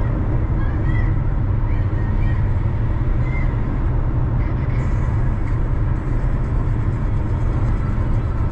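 Car driving in city traffic: steady low rumble of engine and road noise, with a few faint short high chirps in the first few seconds.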